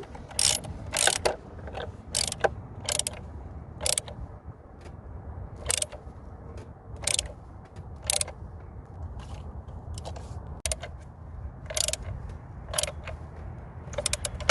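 Hand ratchet with a 10mm socket clicking in short, irregular runs as the screws holding the ignition coil cover are tightened down.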